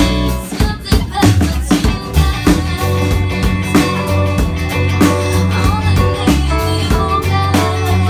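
Live band playing a song: a woman singing into a microphone over electric guitar, electric bass, a Nord Stage keyboard and a drum kit with a steady beat.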